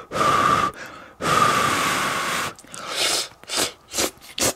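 A man blowing hard on a hot mouthful of udon-pot cabbage and egg to cool it: two long blows, then a run of short, sharp breaths.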